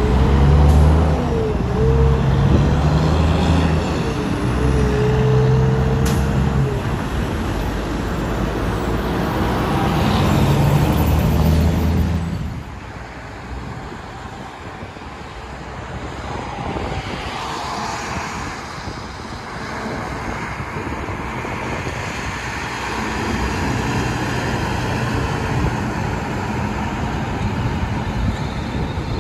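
Semi truck's diesel engine pulling away under load, its pitch stepping as it goes through the gears. About twelve seconds in it gives way to quieter passing road traffic, with another truck's engine building near the end.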